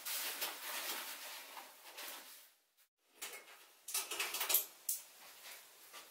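Fabric rustling and soft clicks and knocks as backpacking gear is handled: a backpack being opened and straps worked. The sound cuts out briefly just before the middle.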